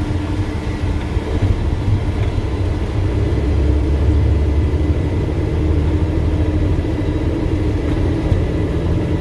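Loaded logging truck's diesel engine droning steadily, heard from inside the cab while driving.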